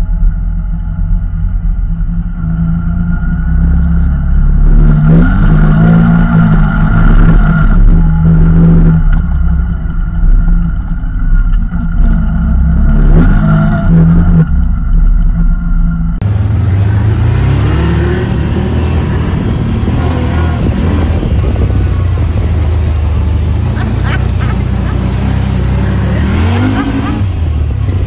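Off-road buggy engine running while driving a dirt track, revving up and easing back several times. About halfway through the sound cuts abruptly to another recording of a buggy driving, with the engine running more steadily.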